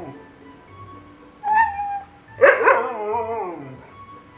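A dog vocalizing in complaint: a short whine about a second and a half in, then a longer, louder, wavering howl-like 'talking' cry that falls in pitch.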